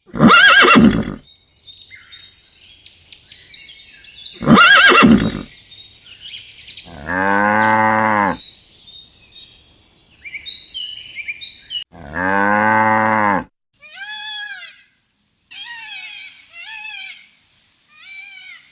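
A run of farm animal calls: two loud harsh calls, small birds chirping, a cow mooing twice in long low moos, then several short high calls that fall in pitch.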